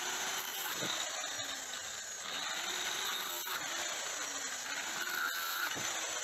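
Angle grinder running steadily. Its abrasive cut-off disc has been jammed in a steel rail and torn down to a ragged stub.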